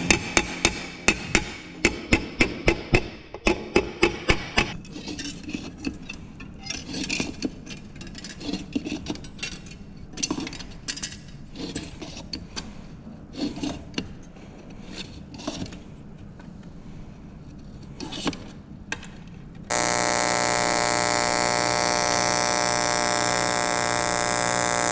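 Sheet metal being hammered, about three sharp blows a second for the first five seconds. Quieter irregular taps and clicks of hand tools working the metal follow. About twenty seconds in, a power hammer starts up with a steady, even buzzing drone.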